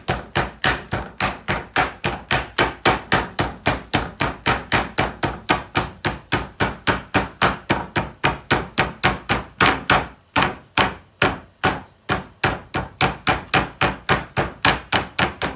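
Metal meat hammer pounding a chicken breast flat through cling film on a wooden chopping board: a steady run of blows, about four a second, with a brief pause about two-thirds of the way through.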